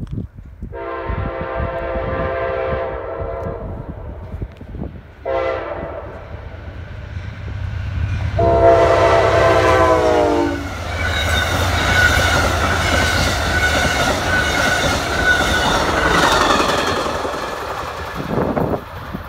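Amtrak GE Genesis diesel locomotive sounding its horn for the grade crossing: a long blast, a short one, then a long one that drops in pitch as the engine passes, finishing the long-long-short-long crossing signal. Then the locomotive and passenger cars run past, wheels clicking over the rail joints, and the sound fades near the end.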